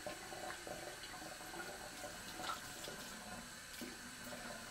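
Bathroom faucet running into the sink, a steady stream of water.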